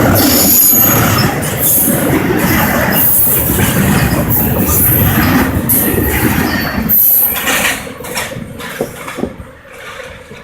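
Norfolk Southern freight train cars rolling past on the rails, a loud steady rumble with short high-pitched wheel squeals now and then. The rolling noise drops off sharply about seven to eight seconds in, leaving a few scattered clicks.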